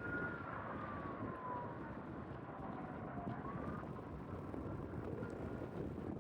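Ambulance siren wailing: its pitch slides slowly down over about three seconds, then starts to climb again and grows faint, over a steady rumble of vehicle noise.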